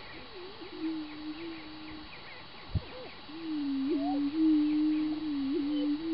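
Greater prairie chickens booming: low, steady hooting notes, each held a second or more and overlapping, with higher bending whoops between them. A short sharp knock comes near the middle.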